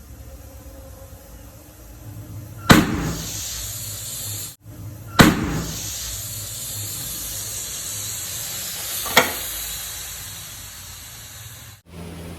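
Pressure cooker whistle venting steam: a steady hiss of escaping steam, broken by three sudden loud blasts about three, five and nine seconds in. The sound cuts out abruptly twice.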